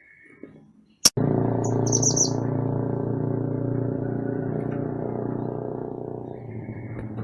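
Small songbird chirps, then a sharp click about a second in, followed by a loud, steady, many-toned hum that slowly fades. A short, high chirping phrase comes over the hum.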